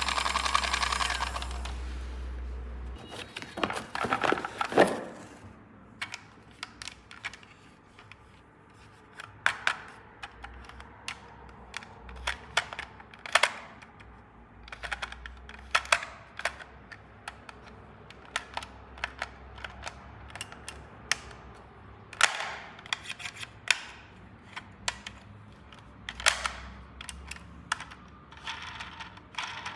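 Small plastic toy pieces being handled and set down: irregular light clicks and taps, with a denser clatter about four to five seconds in. A pitched tone fades out in the first second or two.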